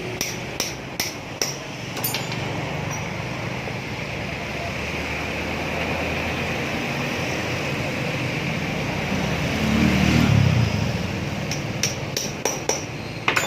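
Light hammer taps on metal, about two or three a second for the first two seconds and again in the last two seconds, during reassembly of a water pump after new bearings and a water seal. In between is a steady low hum that swells briefly about ten seconds in.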